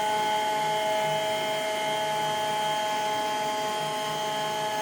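Steady electric motor hum of a kitchen appliance running, with several fixed whining tones and a low part that pulses evenly about twice a second.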